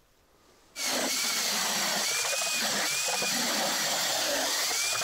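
Cordless drill spinning an ice auger through river ice, starting abruptly just under a second in. The motor's whine rises and sags several times as the blades load up in the ice, over a steady grinding of cut ice.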